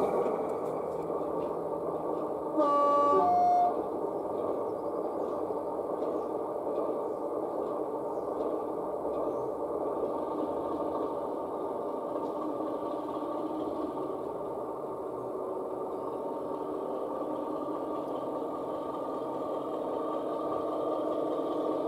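Sound decoder of an O gauge model Class 33 diesel locomotive playing a steady diesel engine sound through its small speaker, with a brief two-note horn toot about three seconds in.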